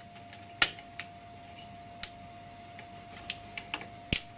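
CPU cooler's plastic push-pin tabs being pressed down and snapping into the motherboard mounting holes: a series of sharp clicks, the loudest about half a second in and just before the end.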